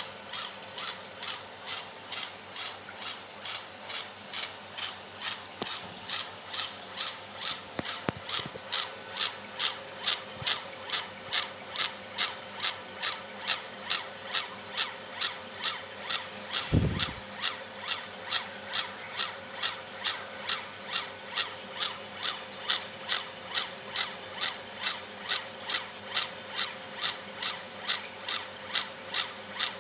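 Homemade CO2 laser engraver raster-engraving a photo: the stepper-driven laser head sweeping back and forth about twice a second, each pass ending in a sharp reversal, over a steady hum. One low thump about halfway through.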